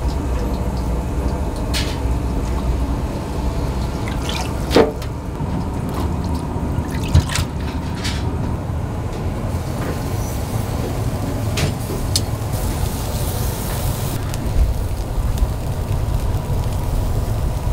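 Skewered grilled eels being dipped into a pot of thick sauce, with liquid dripping and several sharp clicks of metal skewers, over a steady low kitchen rumble.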